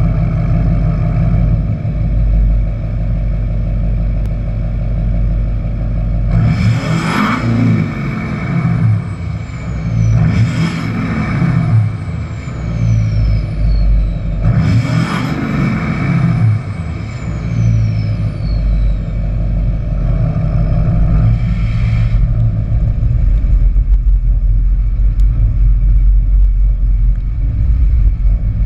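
Duramax turbo-diesel heard right at its axle-dump exhaust tip, idling with a deep rumble and blipped three times, then once more lightly. Each rev is followed by a high whistle falling in pitch as the turbo spools down. Near the end the engine note runs denser and a little louder.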